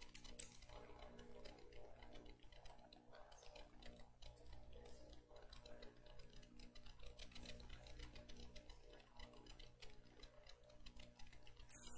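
Near silence: room tone with a faint steady hum and scattered faint ticks.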